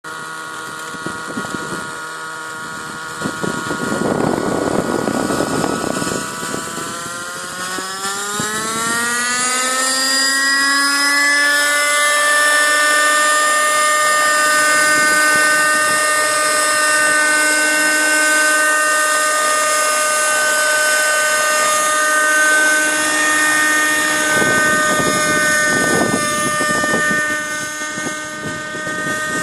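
Thunder Tiger Raptor 30 nitro RC helicopter's two-stroke glow engine running, its whine rising steeply in pitch for a few seconds as the head spools up, then holding a steady high whine. Two bursts of rushing noise come through, one early and one near the end.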